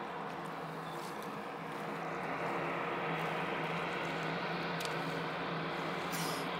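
Steady engine drone, a low hum under a hiss, getting a little louder about two seconds in.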